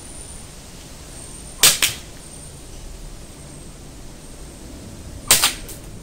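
Two katana cuts into a dry bamboo pole, about three and a half seconds apart, each a sharp crack followed at once by a second crack. The bamboo has dried and started to yellow, so it splits and splinters rather than cutting cleanly.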